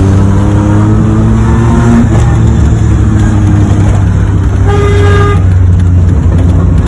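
A Maruti 800's three-cylinder engine drones loudly and steadily through its homemade valvetronic exhaust while driving, heard from inside the cabin, its pitch rising a little in the first couple of seconds. A car horn sounds briefly, about half a second long, about five seconds in.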